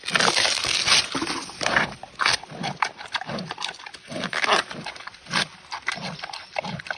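An animal making a rapid, irregular series of short, noisy calls or breaths, densest in the first two seconds and thinning out after.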